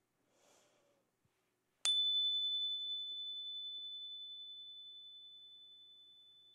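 A small hand-held chime struck once with a mallet about two seconds in, giving one high, clear ringing tone that fades slowly with a slight wavering. The strike opens a deep listening meditation, the tone to be followed from its beginning through its middle to its end.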